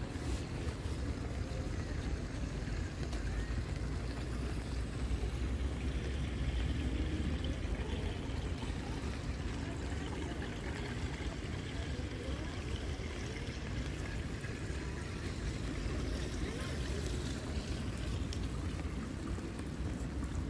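Steady outdoor background noise: a low rumble under a light, even hiss.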